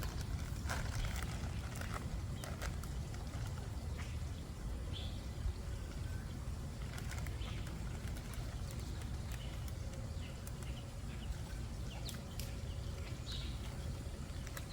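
Outdoor ambience: a steady low rumble with scattered light rustles and clicks, and a few short, faint bird chirps.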